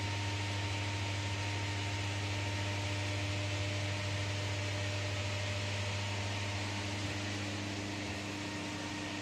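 Steady hum and airy hiss of the climate-control fan unit in an enclosed Ferris wheel cabin, with a low drone and a few fixed tones running evenly throughout.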